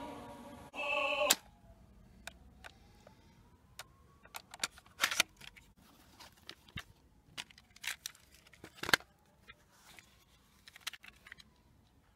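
Opera singing from a cassette on a small Sanyo portable cassette radio stops about a second in with a sharp click of the player's key. Then come scattered light plastic clicks and knocks of a cassette case and its box being handled, the loudest near the end.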